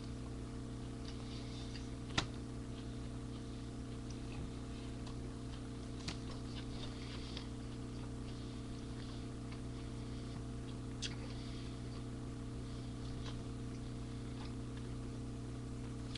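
Steady electrical hum with faint crackle and three sharp clicks, the loudest about two seconds in and the others near the middle and two-thirds through.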